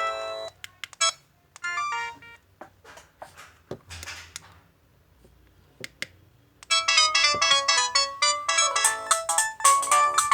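Polyphonic alarm tones of an LG MG160a mobile phone. One electronic melody cuts off about half a second in, followed by a few scattered short notes and clicks. Another busy electronic melody starts about two-thirds of the way through and plays on.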